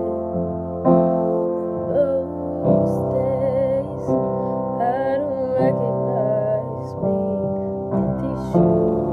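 Piano playing sustained chords, a new chord struck every second or two. Through the middle a woman's voice sings a melody over it with vibrato.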